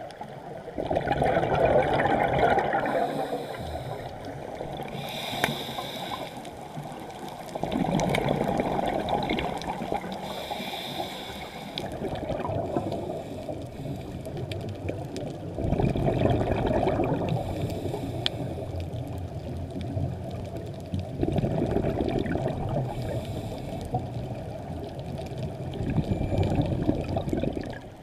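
Scuba diver breathing through a regulator, recorded underwater. About five bursts of exhaled bubbles come several seconds apart, with shorter, fainter hissing inhalations between them.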